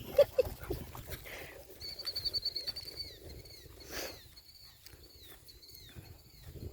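A small bird singing: a quick high trill about two seconds in, then a run of short, downward-slurred whistled notes repeated every half second or so. Soft irregular patter, like footsteps through grass, runs underneath.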